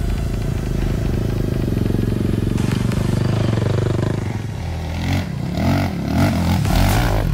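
Racing quad (ATV) engine running at steady revs, then revved up and down in about four quick throttle blips in the second half.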